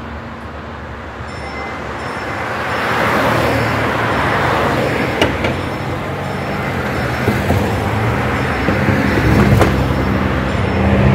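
A car driving over the railway level crossing and away, its road noise building about two seconds in and holding steady. A few sharp clicks sound about five seconds in and again near the end.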